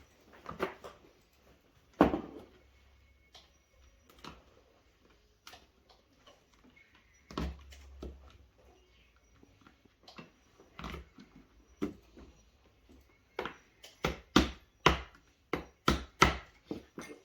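Knocks and clatter of flat-pack drawer parts being handled, then a quick run of about a dozen sharp knocks near the end, as fittings are tapped home with a screwdriver handle.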